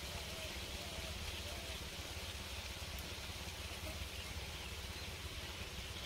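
Quiet outdoor background hiss, with a few faint short rising-and-falling calls in the first two seconds.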